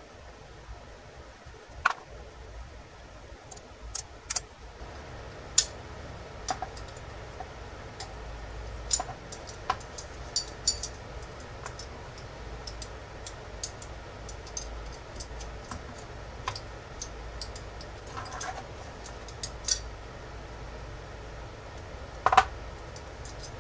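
Irregular light metallic clicks and taps of small revolver parts and tools being handled while the antique Beaumont Adams percussion revolver's lockwork is taken apart, over a steady low hum.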